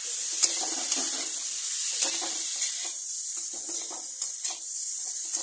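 Chopped tomatoes, capsicum and onion masala sizzling in hot oil in a metal kadhai, with a metal spatula scraping and stirring against the pan in repeated irregular strokes.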